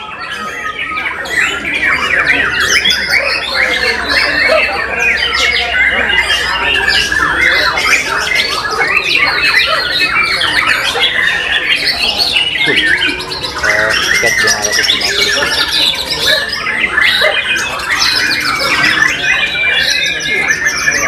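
White-rumped shamas (murai batu) singing loudly and without pause, several caged birds' rapid whistles, trills and harsh chatter overlapping.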